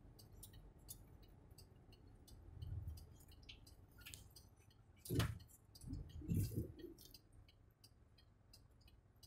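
Faint low rumble of a truck on the move, heard inside the cab, with light ticking throughout. A loud thump about five seconds in, then a few low thuds.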